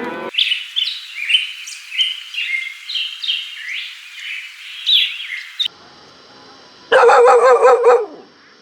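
Small birds chirping: many short, high, falling calls in quick succession for about five seconds. After a short pause, a loud wavering animal call lasting about a second.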